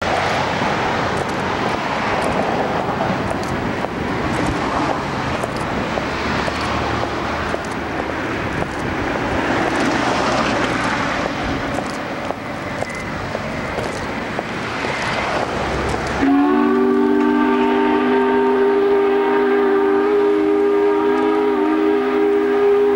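Steady rushing noise for about sixteen seconds. It breaks off, and the Corning Glass Works factory steam whistle starts: a chord of several pitches sounding together, held steady.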